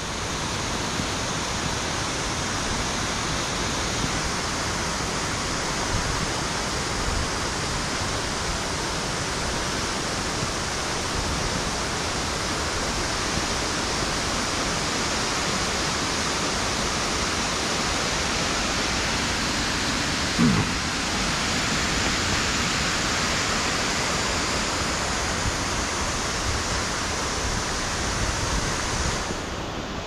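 Steady rushing roar of a waterfall in spate, swollen by heavy rain. A brief low sound cuts in about two-thirds of the way through.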